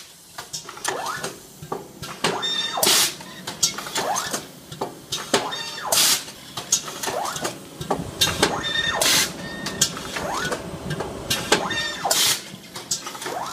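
Sharp MAX IP automatic bagger-printer cycling: a short loud hiss four times, about every three seconds, with rising motor whines and mechanical clatter in between as each bag is fed and printed.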